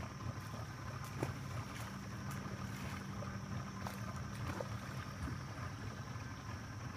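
A small engine running steadily with a low drone, and a few faint clicks.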